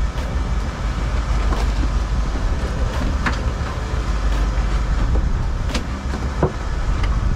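A sport-fishing boat's engines running with a steady low rumble, under wind and water noise, with a few sharp knocks or clicks about three and six seconds in.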